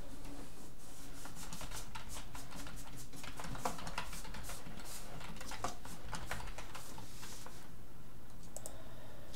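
Computer keyboard typing: irregular key clicks as a short phrase is typed, thinning out near the end, over a steady low hum.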